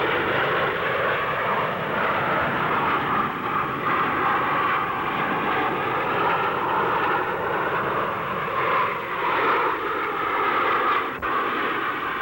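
Naval jet fighters, Sea Vixens and Scimitars, flying past in formation. Their jet engines make a steady, unbroken noise, dulled by an old film soundtrack with no treble. There is one brief click near the end.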